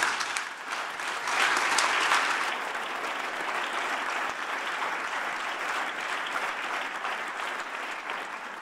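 Audience applauding at the end of a talk. The clapping swells to its loudest about two seconds in, then holds steady.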